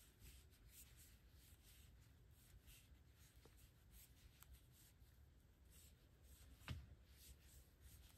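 Near silence: faint, repeated rustling of yarn being worked with a crochet hook, with one soft click about two-thirds of the way through.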